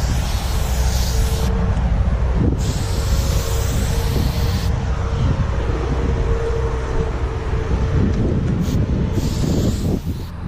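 Aerosol spray-paint can hissing in several bursts of one to two seconds, starting and stopping sharply as paint is laid on a wall, over a steady low rumble of wind on the microphone.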